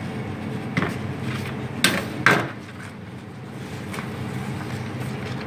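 Three knocks, the last the loudest, as a tart is lifted out of its fluted metal tart tin and set on a cake board, over a steady low hum.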